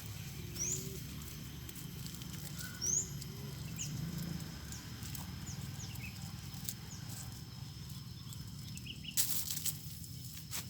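Outdoor background with small birds giving short high chirps every second or two, and a brief cluster of rustles and knocks about nine seconds in as a plastic bag and stone are handled.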